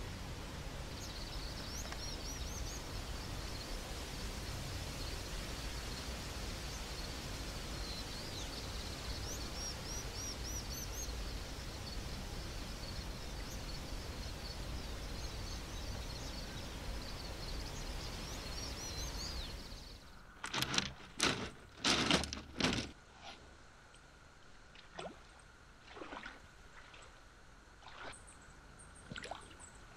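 Steady outdoor hiss with a small songbird singing short phrases over and over. About two-thirds of the way through it drops to quieter lakeside sound, broken by a quick run of loud water splashes and then a few softer ones as a person wades into the lake.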